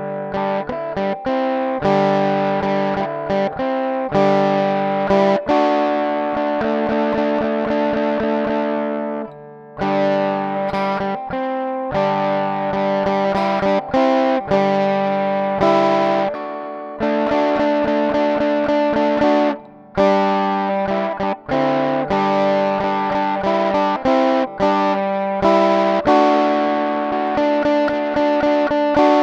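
Ibanez RG421MOL electric guitar playing a rock riff through an amplifier or effects: held chords and notes, many of them cut off short, with a couple of brief pauses.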